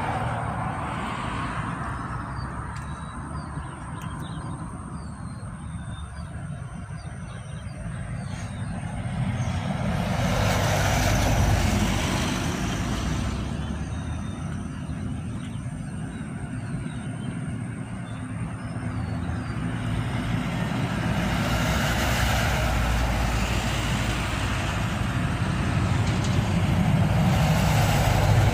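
Road traffic passing close by: vehicles swell past one after another over a steady low rumble, the loudest about ten seconds in and again through the last third.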